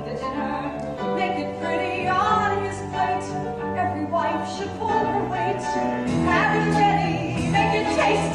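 Musical theatre number: a pit orchestra accompanies sung voices holding long, wavering notes over a steady bass line.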